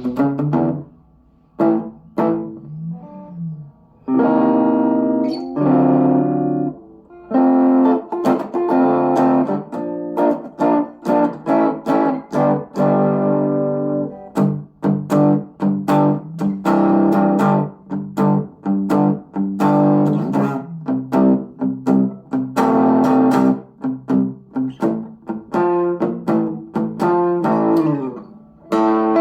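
Electric guitar, a FABIO ST100 WH Stratocaster with three single-coil pickups, played through a FABIO G-10 small combo amplifier. A few notes with pauses and pitch bends come first; from about four seconds in it plays steadily, chords and single notes.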